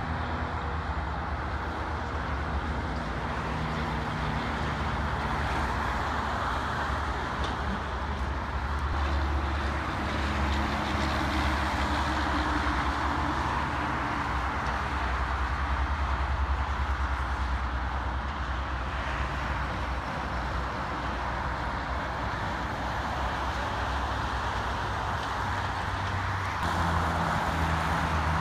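Steady highway traffic: tyre noise from cars and trucks passing on a multi-lane highway, with the low drone of truck engines underneath. A louder low engine hum comes in near the end.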